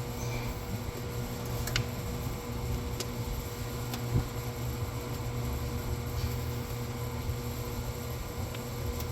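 A steady low mechanical hum, like a fan running, with a few faint clicks and knocks of parts being handled and fitted by hand.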